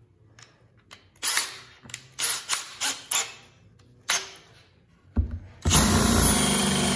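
Makita cordless drill given several short trigger bursts while the chuck is gripped, tightening a Forstner bit into it. About five seconds in, the drill starts running steadily as the Forstner bit bores into a wooden board.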